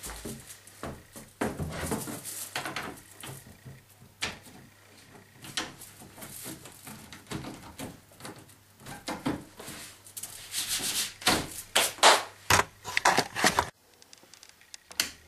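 Hand scraping and rubbing on a hard plastic surface in irregular strokes, busiest and loudest late on, then stopping suddenly shortly before the end.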